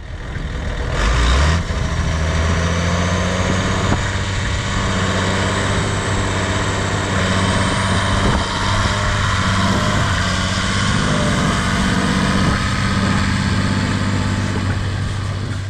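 John Deere 8100 tractor's six-cylinder turbo diesel running steadily under load, pulling a 72-disc Super Tatú eccentric disc harrow through the soil. The engine note rises about a second in, then holds steady.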